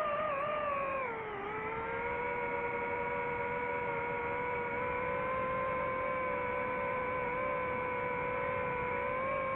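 DJI FPV drone's motors and propellers whining in flight, a steady pitched whine that dips in pitch about a second in and then holds level.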